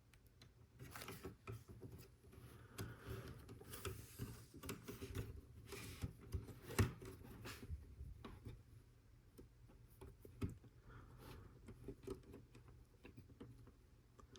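Plastic Lego Technic pieces being handled and fitted together: a run of faint, irregular clicks, taps and rubbing, with one sharper click about seven seconds in.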